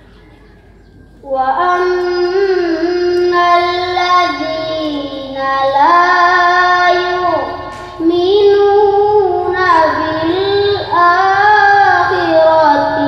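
A girl's voice chanting Qur'an recitation (tilawah) in a melodic style, with long held, bending notes broken by short pauses for breath, starting about a second in.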